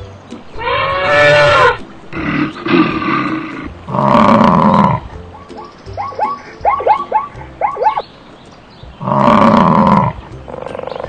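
A string of loud wild animal calls, several of them roars, with a quick run of short rising chirps in the middle.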